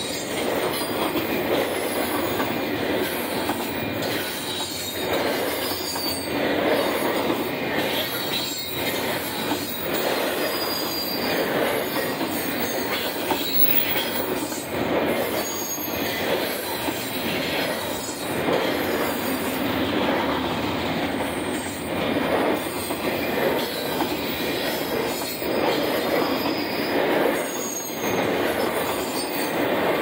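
Union Pacific double-stack intermodal freight train's container cars rolling past at speed: a steady rumble and rattle of steel wheels on rail that rises and falls every couple of seconds as the cars go by.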